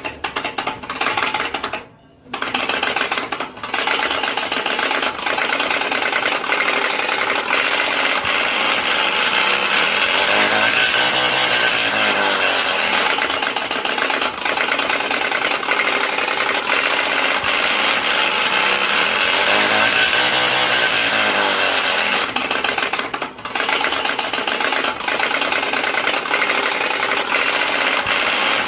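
A motor sound effect running steadily, its pitch rising and falling twice.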